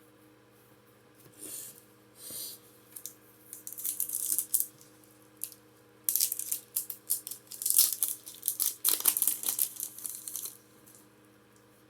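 Foil wrapper of a Pokémon booster pack crinkling and tearing as the pack is opened and handled, in irregular bursts of rustling that are busiest in the second half.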